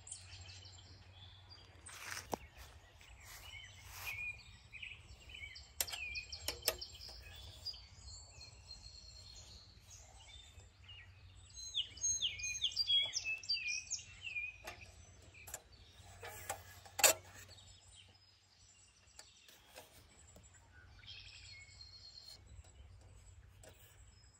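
Songbirds singing, with runs of short chirps and quick falling notes. A few sharp clicks cut in; the loudest comes about two-thirds of the way through.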